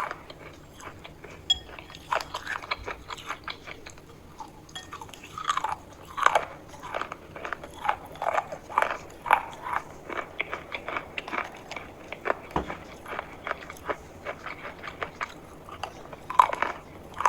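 Close-up biting and chewing of something crunchy: irregular sharp crunches, several a second, with a few louder bites.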